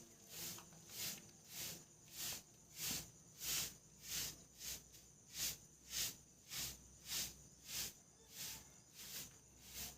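Insect calling in a steady rhythm of short, high-pitched hissing pulses, about three every two seconds.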